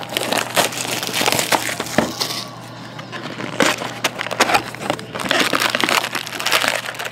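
Plastic shrink wrap crinkling and crackling as it is torn off a sealed cardboard box of trading cards, then foil card packs rustling as they are handled near the end.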